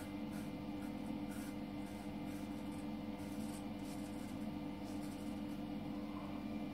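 Thiers Issard straight razor scraping through lather and stubble on the neck in a series of short strokes, mostly in the first four seconds or so, over a steady low hum.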